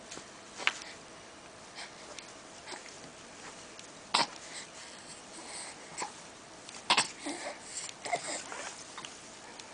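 Baby's snuffly breathing and small mouth noises, with a few short sharp smacks or clicks scattered through and a cluster of breathy sounds near the end.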